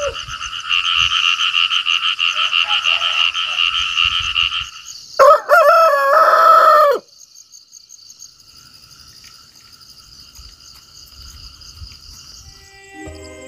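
A chorus of frogs calls in a rapid pulsing trill for the first few seconds. Then a rooster crows once, loudly, about five seconds in, for about two seconds.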